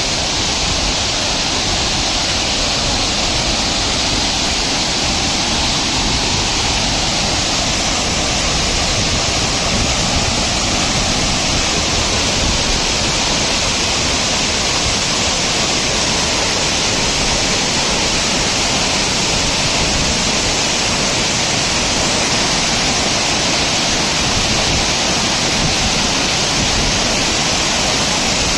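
Tirathgarh waterfall's water pouring down in a loud, steady rush.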